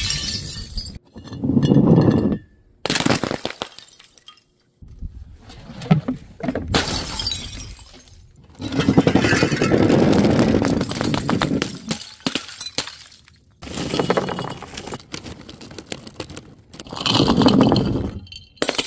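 Glass jars full of water beads smashing on paving one after another: a series of separate crashes of breaking glass a few seconds apart, each with shards and beads scattering.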